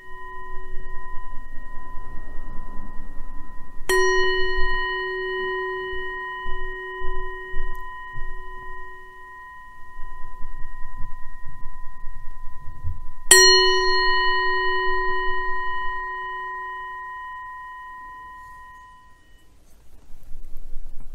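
A meditation bell struck twice, about nine seconds apart, each stroke ringing on and slowly fading over several seconds; the ring of an earlier stroke is still sounding at the start.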